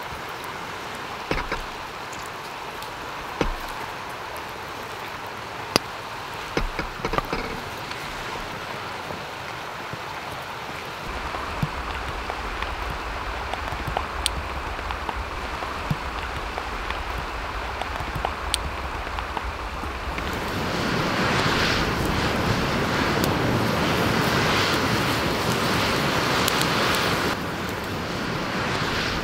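Steady rushing of a mountain torrent, with a deep wind rumble joining about a third of the way in and the noise swelling louder for several seconds near the end. A few sharp clicks and knocks in the first seconds.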